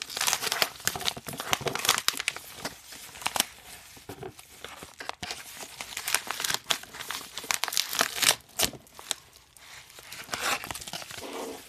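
A yellow padded bubble mailer being torn open by hand: paper ripping and crinkling in irregular bursts.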